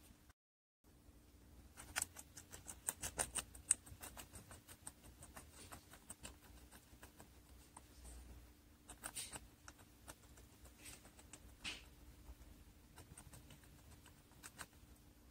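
Guinea pig chewing fresh vegetables: a quick run of crisp, clicking crunches about two seconds in, then scattered bites and chews.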